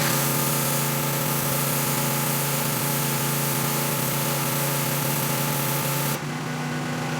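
A 3400 PSI pressure washer running flat out, its engine hum under the loud, steady hiss of the wand spraying at full pressure. The hiss drops back a little about six seconds in while the engine keeps running.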